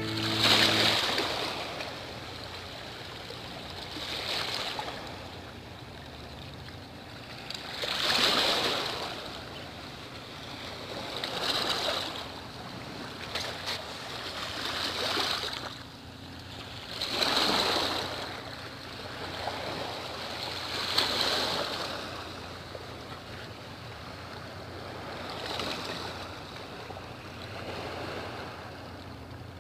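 Small sea waves washing onto the shore, a swell of hissing surf every three to four seconds.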